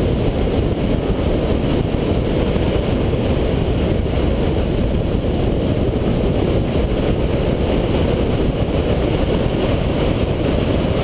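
Car driving at speed on an autocross course: a steady, dense rush of wind and road noise, heaviest in the low end, with no clear engine note standing out.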